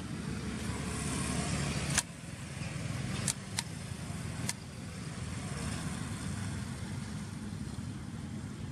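Steady low rumble of a motor vehicle engine, with four sharp clicks in the first half, the first and loudest about two seconds in.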